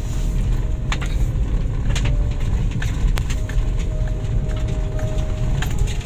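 A vehicle under way: a steady low rumble with scattered sharp knocks and rattles.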